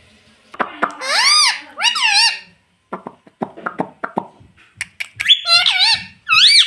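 Ringneck parrot giving loud squawks that rise and fall in pitch, two about a second in and several more near the end. Between them is a run of sharp clicks.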